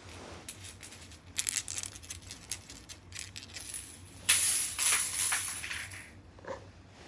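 A cat's small ball toy batted and rolling across a hard vinyl floor. It comes in quick clattering bursts, a short run about a second in and a longer, louder one past the middle.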